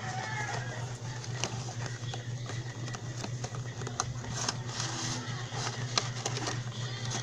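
Cardboard retail box of a small microphone being opened and handled: scattered clicks, taps and rustles of the packaging over a steady low hum.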